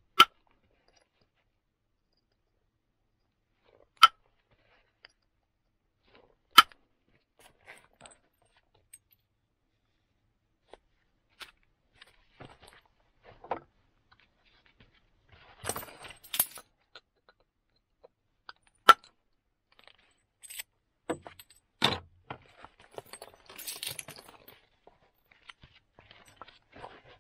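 Flint axe blank being knapped by indirect percussion: a wooden billet strikes a moose-antler punch set against the flint, giving about five sharp strikes several seconds apart. Smaller clicks and short rustling between the strikes.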